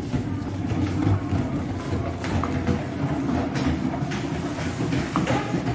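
Small hard wheels under a boxed photocopier rumbling and rattling steadily as it is pushed across a tiled floor, with scattered clicks.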